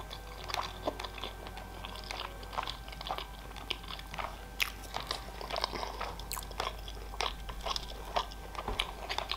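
Close-miked chewing of a mouthful of sushi rolls: a steady run of small wet clicks and smacks from the mouth.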